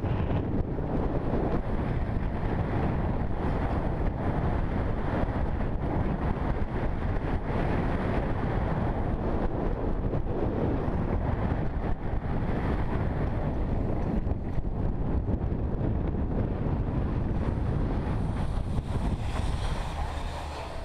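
Wind buffeting the microphone of an action camera as a skier runs downhill on packed snow, with the rush of the skis over the snow. The noise eases near the end as the skier slows.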